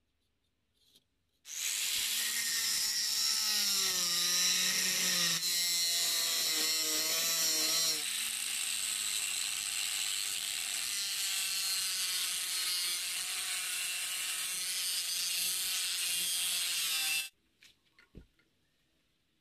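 Angle grinder with an abrasive cut-off disc cutting through a rusty steel plate: a loud harsh hiss of the disc on metal over a motor whine that wavers in pitch as the wheel bites. It starts about a second and a half in and stops abruptly near the end, followed by a few faint clicks.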